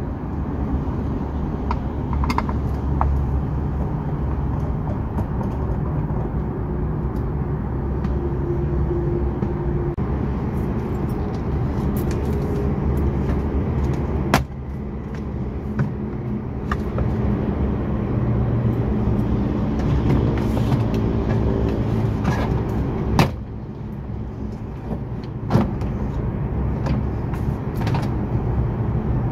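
Plastic door trim and its clips being pried and pulled off a Perodua Myvi door, with a few sharp clicks and snaps as the clips let go, over a steady low vehicle rumble.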